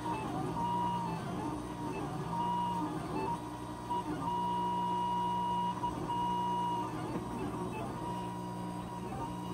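Monoprice Maker Ultimate 3D printer printing a slow first layer: its stepper motors whine, the pitch sagging and recovering with each move of the print head and stopping briefly between moves, over a steady low hum.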